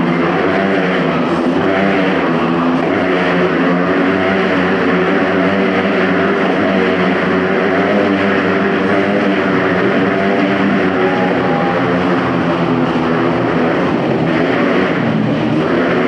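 Several motorcycle engines running at high, steady revs together as the riders loop inside a steel-mesh globe of death.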